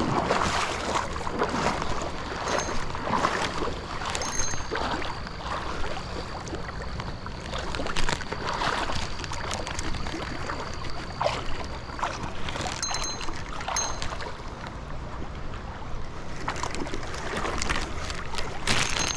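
Water rushing and splashing steadily, with a few short, faint high beeps now and then.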